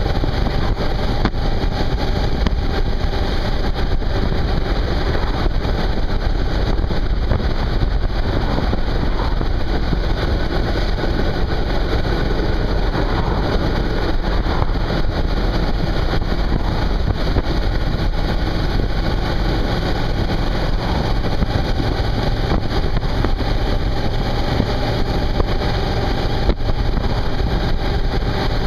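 Suzuki V-Strom 650's V-twin engine running steadily at cruising speed, mixed with wind and road noise.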